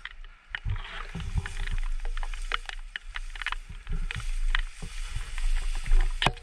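Dry tall grass rustling and crackling against the camera as the wearer moves low through it. A low rumble from wind or handling on the microphone runs underneath, with a sharper snap near the end.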